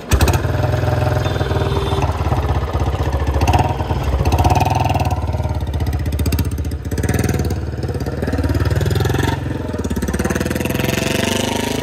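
Royal Enfield single-cylinder motorcycle engine running loudly, its speed rising and falling a few times in the second half.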